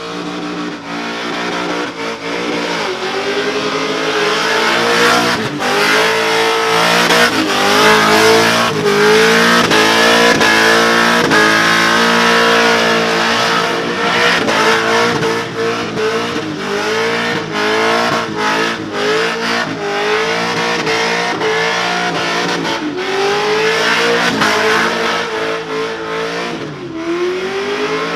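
V8 engine of a burnout ute revving hard and held high, its pitch rising and dipping again and again, over the hiss of spinning tyres.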